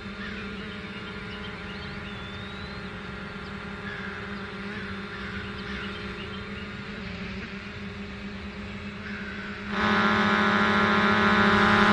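Birds chirping over a steady low hum. About ten seconds in, the DJI Mavic Air 2 drone's propellers spin up suddenly into a loud, many-toned whine.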